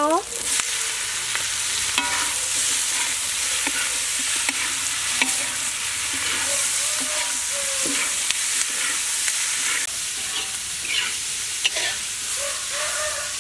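Oil sizzling steadily in a wok as sliced shallots, garlic, lemongrass and offal are stir-fried, with a metal spatula scraping and clicking against the wok now and then.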